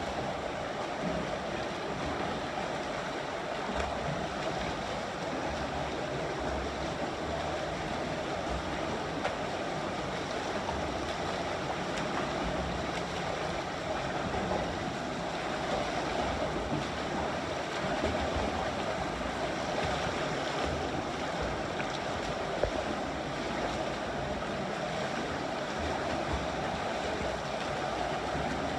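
Steady wash of water noise, with low gusty rumbles of wind on the microphone.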